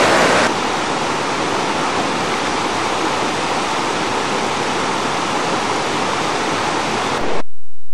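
Fast mountain creek rushing and tumbling over rocks: a steady, dense roar of water that drops slightly in level about half a second in and cuts off suddenly near the end.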